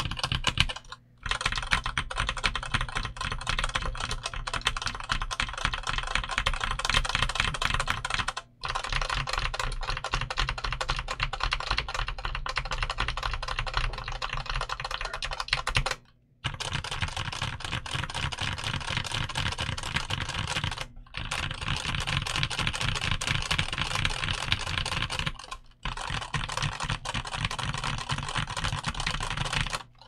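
Fast typing on a Redragon K550 Yama mechanical keyboard with Redragon Purple tactile switches, an aluminium plate and ABS OEM keycaps: a dense, continuous run of key clacks, broken by about five brief pauses.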